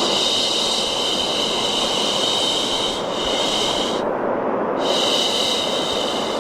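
Long drawn-out "shhh" shushing by a voice, layered over steady white noise, for soothing a baby to sleep. The shush holds for about four seconds, pauses briefly, then starts again while the noise runs on unbroken.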